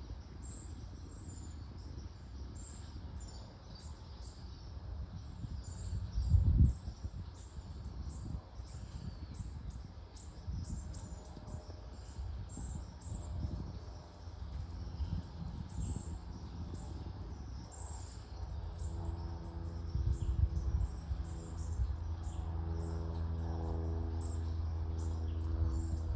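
Outdoor ambience: many short, high chirps scattered throughout over a low rumble that swells briefly about six seconds in. From about two-thirds of the way through, a steady droning hum like a distant engine joins in.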